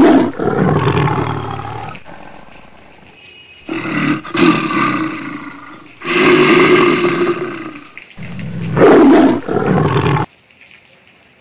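Big-cat roars laid over the footage as a sound effect, not made by the house cat: four long, deep roars about two to three seconds apart. The last one cuts off abruptly near the end.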